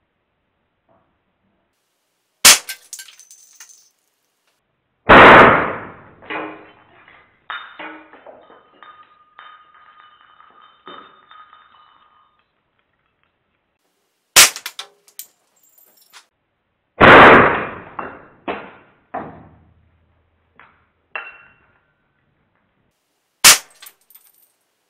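Shots from a Hammerli Pneuma .177 PCP air rifle hitting hanging watches: three sharp, short cracks spread through the stretch. Twice a loud metallic clang follows a couple of seconds after a crack and dies away in a string of smaller clinks and rattles as pieces bounce and settle.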